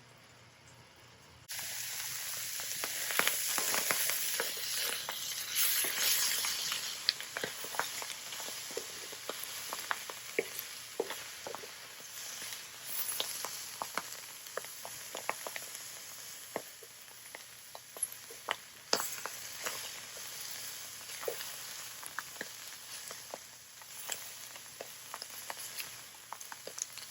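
Mushrooms, onions and bell peppers frying in beef tallow in a hot skillet: a steady sizzle full of sharp crackles and pops. It starts abruptly about a second and a half in and is loudest in the first few seconds.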